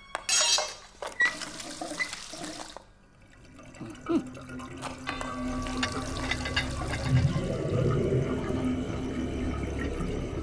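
Water rushing down the kitchen sink drain and through the pipe, like a flush. It dips briefly about three seconds in, then comes back as a steady rush with a low rumble that builds over the second half.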